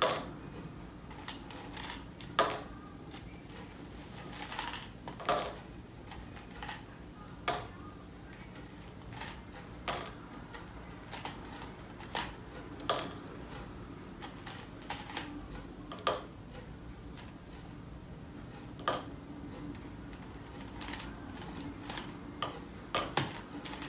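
Mike and Ike candies clicking against a small lidded bottle as they are dropped in one or a few at a time, with lighter rattling of candies being dug out of a plastic cup. The sharp clicks come irregularly, about every two to three seconds.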